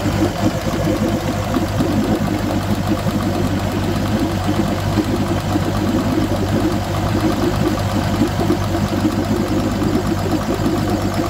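Evinrude E-TEC G2 200 HP two-stroke V6 outboard idling steadily, its lower unit in a tub of water and Rydlyme Marine descaler, running to pump the descaler through its cooling passages.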